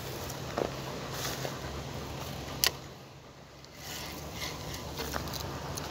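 A steady low hum, with a few sharp clicks and knocks of the phone being handled; the loudest click comes a little before halfway.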